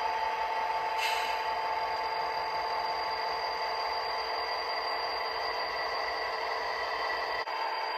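Model Burlington Northern SD40-2 and Santa Fe diesel locomotives rolling slowly along the track with a steady whine and running noise, and a brief hiss about a second in.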